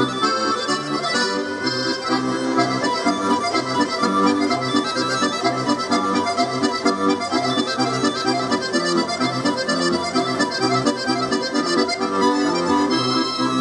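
Button accordion playing a dance tune: a reedy melody over steady, regular bass chords, continuous throughout.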